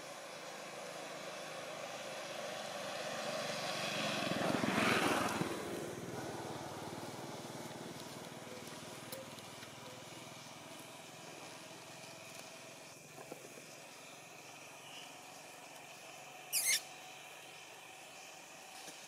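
A motor vehicle passes by, its sound swelling to a peak about five seconds in and then slowly fading. Near the end comes one brief, sharp, high squeak.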